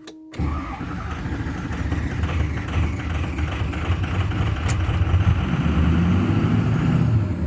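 A 2006 Ford F-250's 6.0 Power Stroke V8 turbo-diesel catches about half a second in and then runs unevenly. It barely starts: a hard-start and rough-running fault that the owner has not yet traced, with the FICM showing a good 48 volts.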